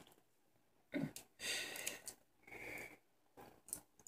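A few faint, short handling noises and breaths while a lip gloss tube is picked up and its cap twisted open.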